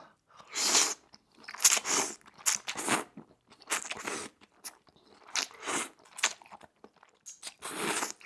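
Close-miked eating of udon noodles: mouthfuls slurped in and chewed, heard as a series of separate noisy mouth sounds every second or two.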